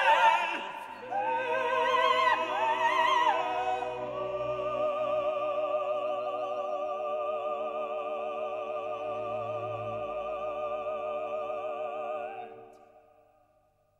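Background music: operatic singing with orchestra, a voice with wide vibrato, then a long held final chord that fades out near the end.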